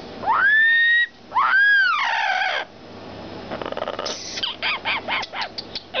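Yellow-naped Amazon parrot calling: a loud whistled note that rises and holds, then a second that rises and falls. Near the end comes a quick run of short chattering notes.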